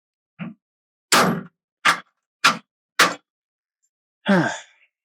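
A series of sharp knocks of metal hardware as caster wheels are being bolted onto a tool cart: five separate strikes about half a second apart, then a short rattling scrape near the end.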